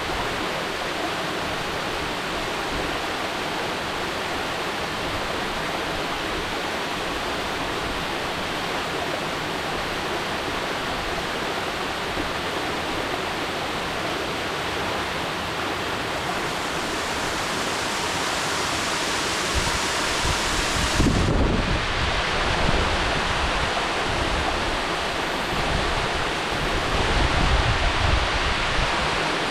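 Mountain waterfall pouring steadily, a constant rushing of water. About two-thirds of the way through, the sound changes abruptly and becomes a little louder, with low rumbling beneath the rush.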